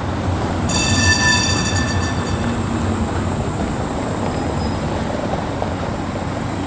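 Škoda 15T ForCity tram running past on street track, a steady rumble of wheels on rails, with a high squeal lasting about a second and a half near the start as it comes round the curve.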